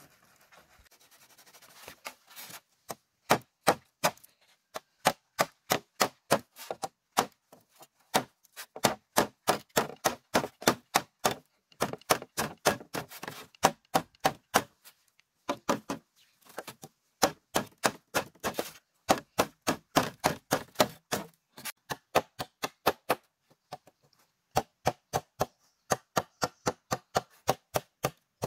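Repeated sharp blows of a hand tool on bamboo, about three a second, in runs broken by short pauses.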